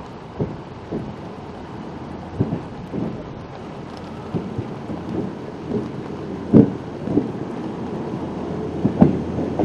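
NER 1903 petrol-electric autocar approaching slowly along the track: a steady rumble that grows louder as it nears, with irregular knocks, the loudest about two-thirds of the way through and again near the end.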